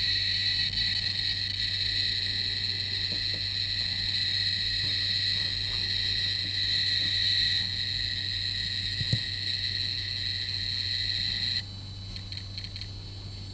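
Cornet ED88 electrosmog meter's speaker sounding a phone's 3G UMTS transmission as a steady high-pitched buzz while the phone loads a web page. The buzz cuts off about twelve seconds in, leaving a fainter hum with a few faint crackles.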